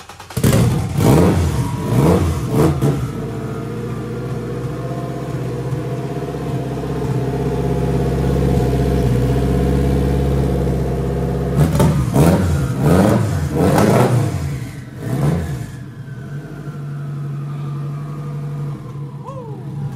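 Turbocharged Honda K-series engine in an EF-chassis Honda starting up, with three sharp throttle blips right after it catches. It then settles into a steady idle, is revved four more times a little past halfway, and drops back to idle.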